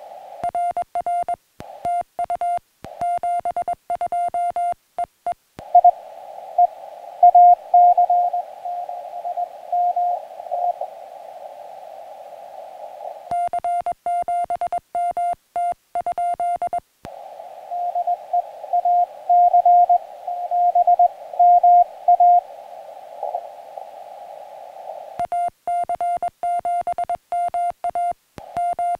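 Morse code (CW) tones at about 700 Hz from a portable ham radio transceiver. Three stretches of crisp keyed sidetone from the operator's own sending alternate with two stretches of received Morse signals, heard in a narrow band of receiver hiss.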